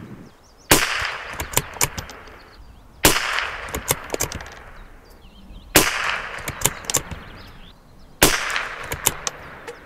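Four shots from a Tikka T1X bolt-action .22 LR rifle firing subsonic Norma Match-22 cartridges, about two and a half seconds apart, each with a short echo. Smaller clicks after each shot are the bolt being worked to chamber the next round.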